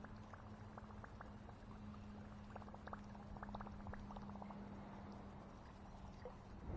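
Fishing reel being cranked in after a missed strike: faint irregular clicking over a steady low hum.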